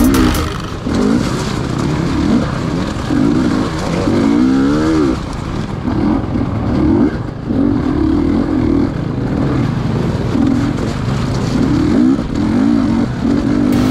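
GasGas EC250 two-stroke enduro bike engine under way, revving up and falling back again and again as the throttle is opened and closed over rough, rutted ground.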